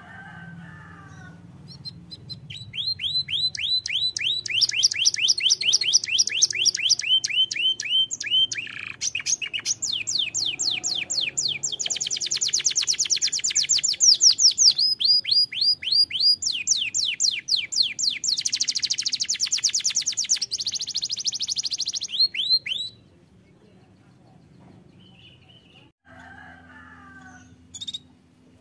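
Domestic canary singing a long song of rapid rolling trills, each a quick run of identical high notes, switching to a new trill every second or two. The song stops suddenly about two-thirds of the way through, and a few short chirps follow near the end.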